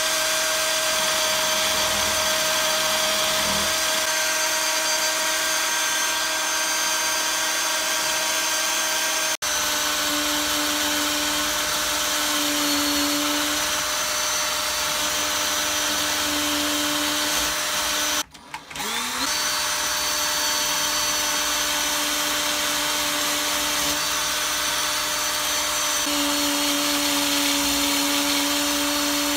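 Cordless drill clamped in a bench vise, running steadily with a whine and spinning an abrasive wheel as small metal parts are held against it. About two-thirds of the way through it briefly stops and spins back up.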